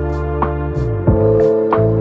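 Background music with a steady beat: sustained keyboard tones over repeated bass strokes and light percussion.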